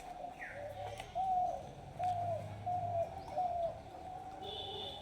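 A dove cooing: four short coos in a row, each rising and falling, about half a second apart.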